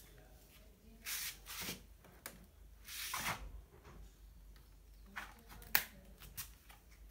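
Handling noise: hands rubbing and brushing in a few soft rustling spells, with one sharp click a little before the end.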